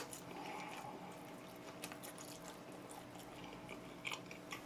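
Quiet room tone with a faint steady hum and a few soft, scattered clicks.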